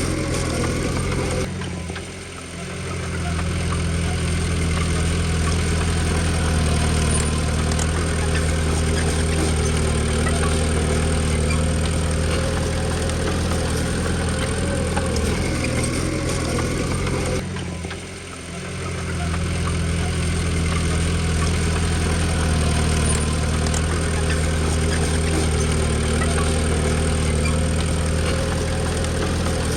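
Komatsu D20P bulldozer's diesel engine running steadily. The sound drops away briefly twice, about two seconds in and again a little past halfway, then comes back.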